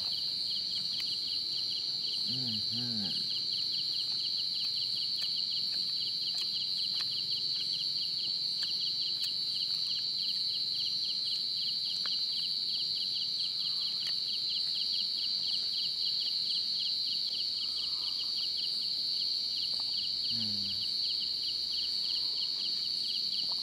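Night insects such as crickets chirping on and on: one unbroken high trill, with a second chirp pulsing in a steady rhythm just below it.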